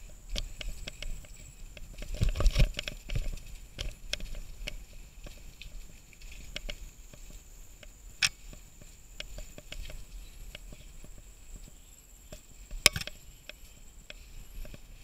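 Mountain bike rattling and knocking over a rough dirt singletrack, heard through the mounted SJ1000 action camera, with a heavier run of knocks about two seconds in and two sharp clicks, one about eight seconds in and one near the end. A faint steady high whine sits under it.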